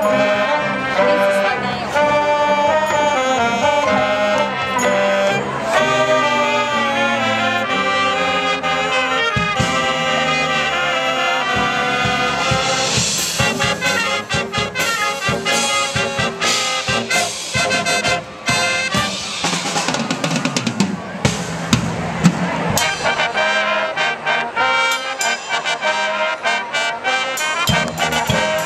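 High school marching band playing: brass (trumpets and sousaphones) with saxophones. The sound turns fuller and noisier about halfway through, with many sharp hits.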